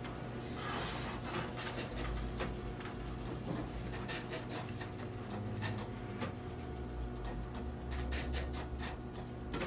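Police station office room tone: a steady electrical hum under scattered, irregular clicks and ticks from office activity, with a brief rustle about a second in and low rumbles now and then.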